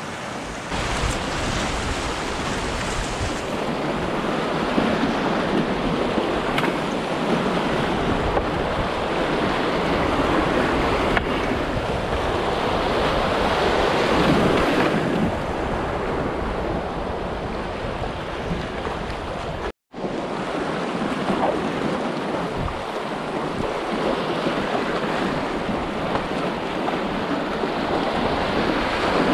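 A small creek running high in rapids, its whitewater rushing steadily over rocks. The sound drops out for an instant about two-thirds of the way through.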